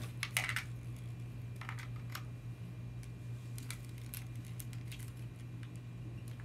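Scattered light clicks and taps of hard plastic toy parts, a handle and peg being pushed onto a Power Rangers Ninja Steel battle morpher by hand. A steady low hum runs underneath.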